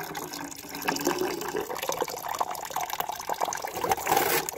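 Tap water pouring steadily into a metal saucepan of water full of strawberries, splashing on the water's surface as the berries are rinsed of mud.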